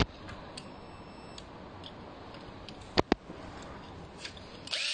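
Two sharp clicks close together about three seconds in, then near the end a cordless drill-driver's motor starts whirring steadily as it backs a screw out.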